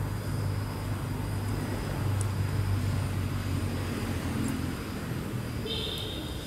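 Steady low hum of background noise, like a running motor or distant traffic, with a brief high-pitched chirp near the end.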